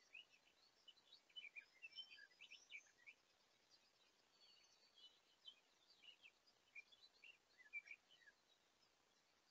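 Faint songbird chirps and twitters: many short, high notes in quick runs, busiest in the first few seconds, over a light background hiss.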